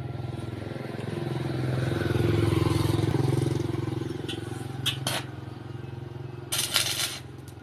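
An engine running steadily, swelling louder for a couple of seconds and then easing off, with a few sharp clicks; near the end comes a short burst of loud hissing crackle.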